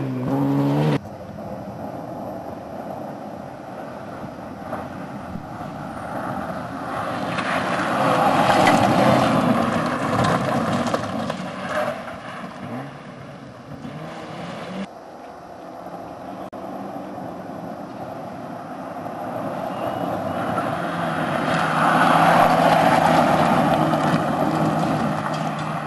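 Rally cars driven hard on a gravel stage, passing one after another with engines at high revs, swelling as each car comes by and fading as it goes. The loudest passes come about eight seconds in and again near the end, and the sound changes abruptly twice between cars.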